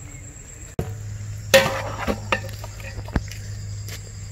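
Crickets chirring steadily at a high pitch, with a few scattered sharp knocks and clatters; the loudest knock comes about one and a half seconds in.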